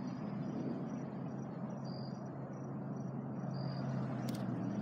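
Outdoor background: a steady low rumble and hum, with a short high chirp repeating about every second and a half, and a brief click near the end.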